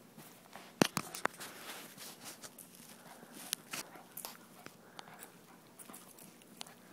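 Pomeranian gnawing a hard rawhide chew: irregular clicking and crunching of teeth on the rawhide, with a few sharper cracks about a second in.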